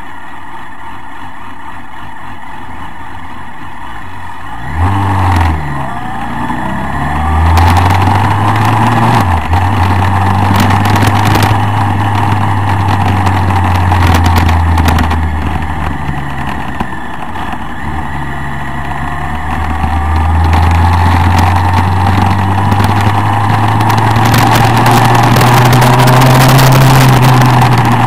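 Motorcycle engine under way with wind rush. About five seconds in the engine note starts climbing as it accelerates, with a brief dip at a gear change near nine seconds and another near eighteen. The note rises again toward the end.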